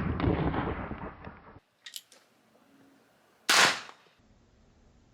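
Two .22 LR gunshots from a Rough Rider, about three and a half seconds apart. The first has a noisy tail lasting well over a second that cuts off abruptly, followed by a few faint clicks; the second is a short, sharp crack.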